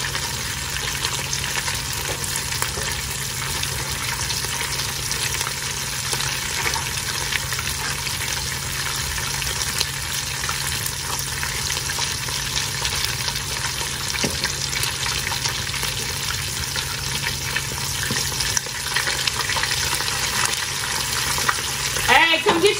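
Cheesy chicken tacos frying in shallow oil in a nonstick pan: a steady sizzle with small crackles. Near the end a person's voice is heard briefly over it.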